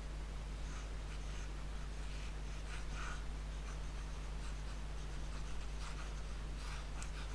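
Chalkboard being wiped clean with an eraser, chalk rubbed off in short, irregular scrubbing strokes, over a steady low hum.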